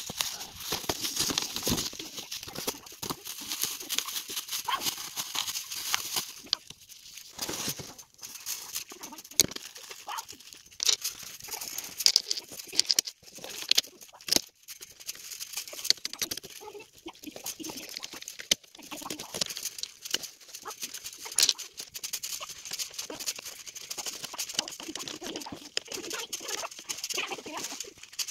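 Hands working on solar panels: cardboard rustling and scattered clicks and knocks of small metal hardware as connector braces are fastened to the panel frames with screws and wing nuts.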